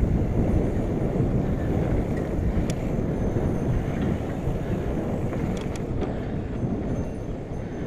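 Mountain bike rolling fast along a dirt trail, heard through an action camera: a steady low rumble of tyres and wind on the microphone, with a couple of sharp clicks.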